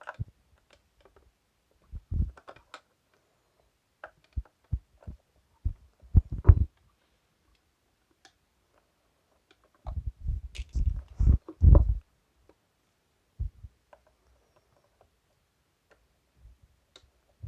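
Scattered handling knocks and dull bumps as the exhaust fan's screw is undone and its plastic blade is worked off the motor shaft: short low thuds in a few clusters with quiet gaps, the loudest group a little past the middle.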